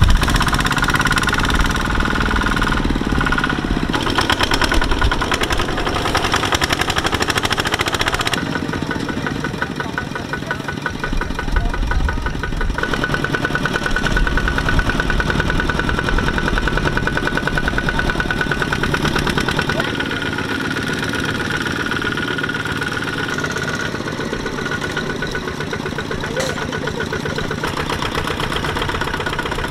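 Single-cylinder diesel engines of two-wheel walking tractors running with an even, rapid chugging as the tractors labour to pull through deep mud.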